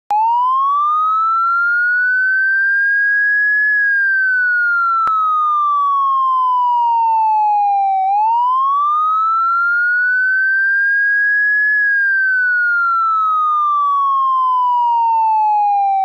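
Police siren in wail mode: one clean tone that rises over about four seconds and then falls slowly back, in two full cycles.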